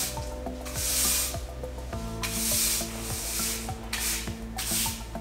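A stiff-bristled broom sweeping a concrete floor in four short swishing strokes, about a second apart.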